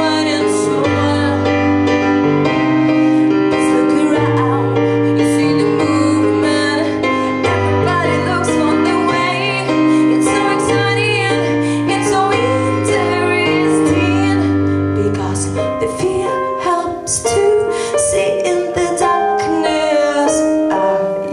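A woman singing live with stage keyboard accompaniment: held piano-like chords over a bass line, which thins out about three-quarters of the way in.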